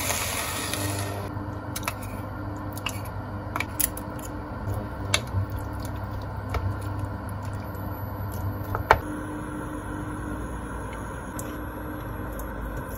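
Water pouring from a plastic measuring jug into a pot of chopped napa cabbage, stopping about a second in. Then a wooden spatula stirs the pot, giving scattered sharp clicks and knocks against it, over a steady low hum.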